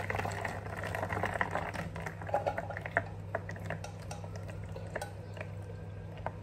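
Cooking water pouring from a saucepan through a plastic colander into a bowl, draining boiled vegetables including sweet potato; the rush of water is strongest for the first two seconds and then thins to dripping, with light knocks of the pan and colander. A steady low hum runs underneath.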